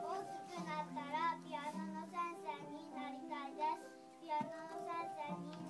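Young children singing together, with steady held notes of instrumental accompaniment beneath the voices.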